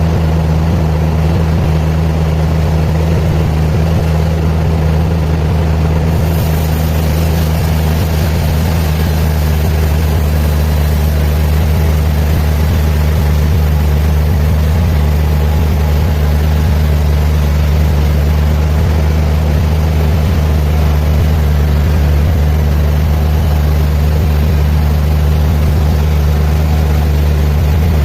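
Heavy sawmill machinery running steadily with a loud, even low hum.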